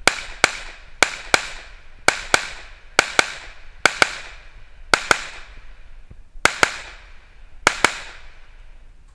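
Gunshots fired in quick pairs: about eight double taps roughly a second apart, each crack followed by a short echo, the last pair near the end.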